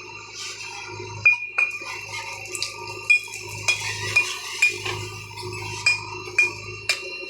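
JCB 3DX backhoe loader at work: sharp metallic clinks and knocks, about one or two a second, over a steady low hum.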